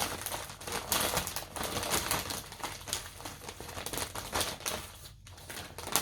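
Small plastic bags of diamond painting drills being handled: plastic crinkling with a rapid run of small clicks and rattles from the drills inside.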